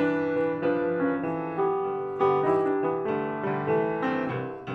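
Piano music: notes struck several times a second over held chords, each note fading after it is played.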